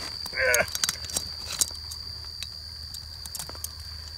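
Pliers clicking against a hook lodged in an alligator gar's throat, a run of sharp clicks in the first two seconds and a few more later, over a steady high insect trill. A short grunt about half a second in.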